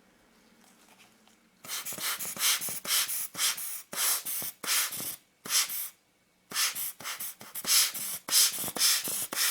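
Rubber hand air blower squeezed in quick puffs, about two a second, blowing dust and a hair off a lens element. Two runs of puffs with a short pause between them.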